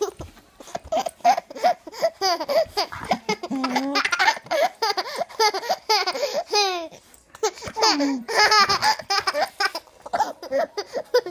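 A toddler laughing in a string of short, high-pitched bursts as a dog licks his face, with a brief pause about seven seconds in.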